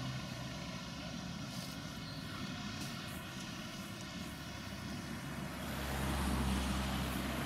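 Tractor engine running steadily. From about six seconds in it gets louder and deeper as the front bale grab lifts a wrapped round bale.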